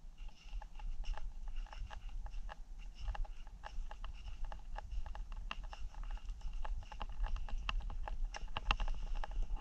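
Small wood campfire crackling, with sharp, irregular snaps several times a second over a low, steady rumble.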